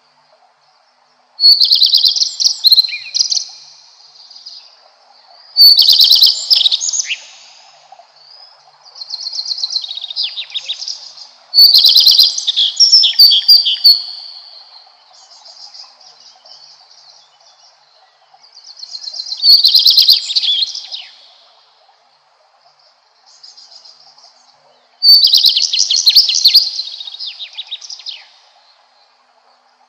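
Redstart singing: about six short phrases, each around two seconds long, opening with clear notes and running into a quick twitter, with pauses between them. A faint steady hum lies underneath.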